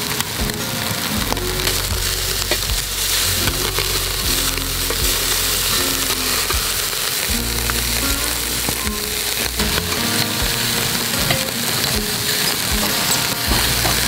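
Pork back ribs sizzling on the grate of a charcoal grill: a steady hiss of fat cooking, dotted with frequent small pops and crackles.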